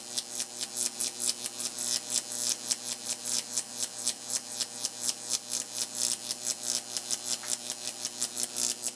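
High-voltage arc from a neon sign transformer climbing between two wire leads in a Jacob's ladder. It gives a steady electrical hum with a rapid, even crackle.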